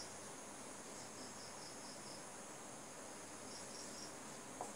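Crickets chirping faintly: short trains of high-pitched pulses, about four or five a second, repeating every second or so over a steady high drone.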